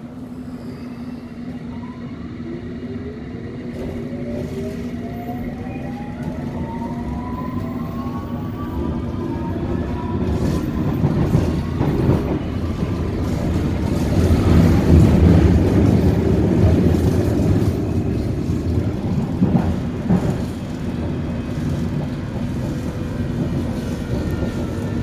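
London Underground S7 Stock train heard from inside the carriage as it gets under way: the traction motors give several rising whines as it picks up speed over the first ten seconds or so, over a steady hum. The rumble of the wheels on the track then grows, is loudest about halfway through, and settles a little.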